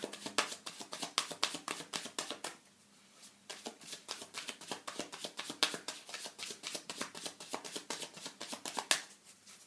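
A deck of tarot cards being shuffled by hand: a rapid run of card clicks and slaps, breaking off briefly about three seconds in before going on.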